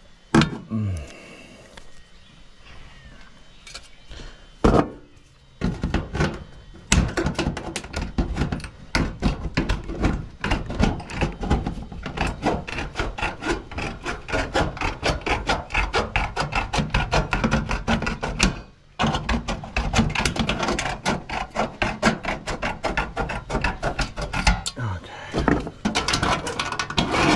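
A few knocks and thumps, then a long run of fast, even back-and-forth rasping strokes on wood, several strokes a second, broken once by a short pause.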